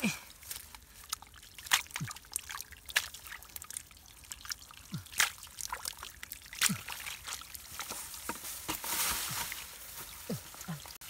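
Hands squelching and scooping through wet mud and shallow muddy water, with scattered sharp splats, plops and drips. About nine seconds in there is a longer wet rush, like muddy water being poured or tipped into a bucket.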